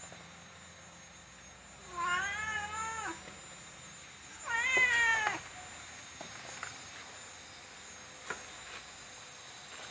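Domestic cat meowing twice, two drawn-out calls about two seconds apart, the second louder.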